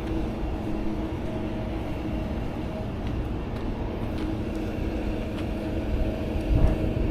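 A vehicle engine running steadily: a low rumble with a constant hum, growing a little louder near the end.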